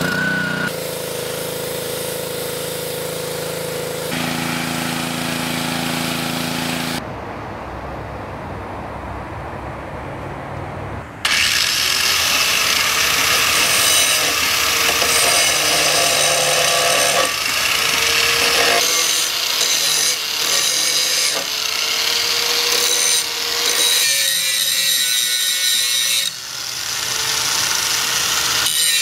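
A pressure washer's small gasoline engine running steadily. From about eleven seconds in, a corded angle grinder grinds a metal rudder post with a high, bright whine, in several stretches with short breaks between them.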